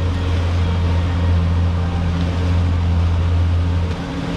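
Twin 300 hp outboard motors running at a steady cruising speed: a constant low drone, with the rush of wind and water past the hull.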